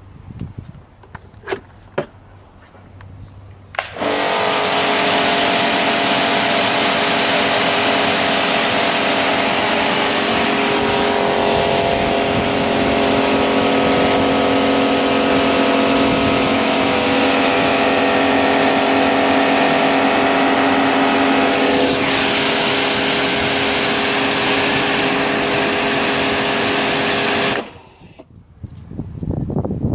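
Kärcher K7 electric pressure washer starting up about four seconds in, its motor and pump running with a steady whine under the hiss of the spray, then cutting off suddenly near the end. A few faint clicks come before it starts.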